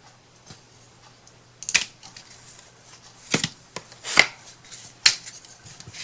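Handling noise at a craft table: four or five short, sharp scrapes and taps, spread over a few seconds, over a faint steady hum.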